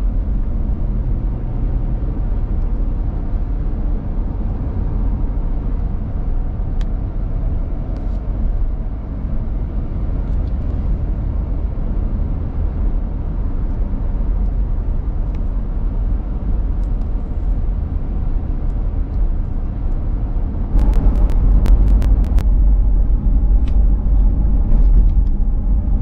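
Steady low road and engine rumble heard from inside a moving car. About 21 seconds in it gets louder, with a quick run of sharp clicks or knocks.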